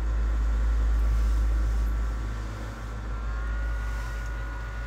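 Hot air rework station blowing on an iPhone 7 logic board to heat the audio IC: a steady blower hum and rush of air, with faint high whines that shift in pitch about three seconds in.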